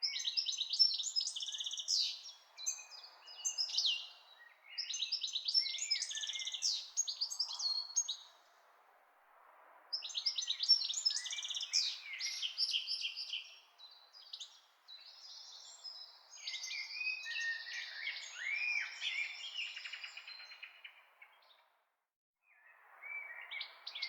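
Songbirds singing and chirping in quick, twittering phrases with short pauses, over a faint steady hiss. The sound cuts out completely twice, about eight seconds in and again near the end.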